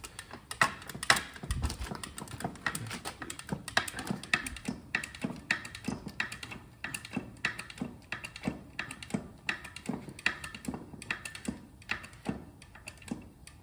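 Hand-operated hydraulic pump being stroked to build pressure in a 50-ton jack cylinder that is pressing a bearing off an elevator motor rotor shaft. It gives a regular click about twice a second, with a few louder knocks in the first couple of seconds.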